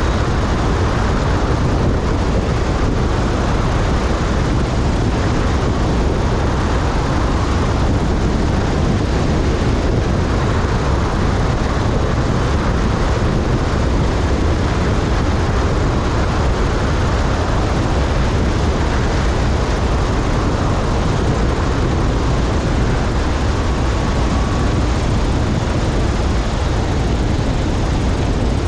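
Steady rush of wind over a camera on the wing strut, mixed with the low drone of a 180 hp Cessna 172's engine and propeller at reduced power on final approach and landing.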